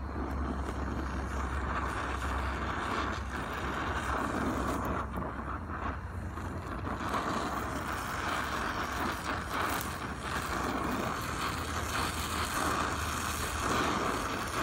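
Gas brazing torch flame hissing and roaring steadily as it heats a brazed fitting on a hydraulic line, working the braze in to seal a leaking joint.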